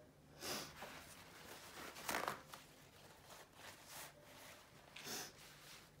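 Faint, short rustling and crinkling sounds from hands handling materials, three of them, the loudest about two seconds in.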